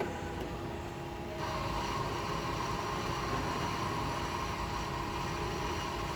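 Self-service coffee machine at work: a steady hum, then about a second and a half in a motor starts up and runs with an even whir.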